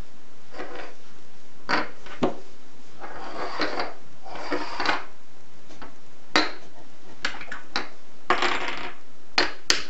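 Plastic linking cubes being picked up and handled on a wooden tabletop: a string of irregular short clicks and brief rattles.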